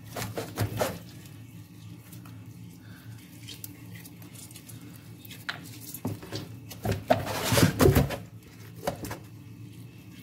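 Water splashing and a bowl or pot clattering as raw chicken is washed by hand, in two bouts: one in the first second and a louder one from about seven to eight seconds in, over a low steady hum.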